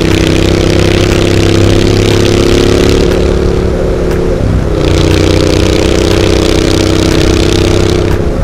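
Triumph Street Scrambler 900's parallel-twin engine through aftermarket Zard exhaust pipes, running steadily under way with wind rush over the microphone. The engine note climbs slightly, then dips briefly about four and a half seconds in and picks back up.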